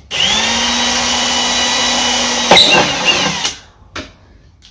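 Power drill, with hammer mode switched off, spinning up to a steady whine, then getting louder and rougher about two and a half seconds in as the bit bites into the plastic bus body, before winding down and stopping.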